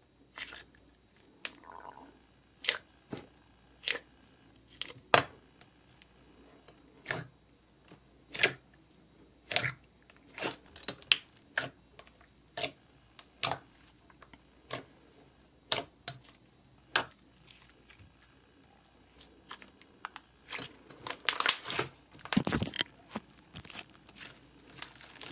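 Thick, glossy slime being poked, pressed and stretched by fingers, giving a string of sharp bubble pops and sticky clicks at irregular intervals, with a denser crackling run toward the end.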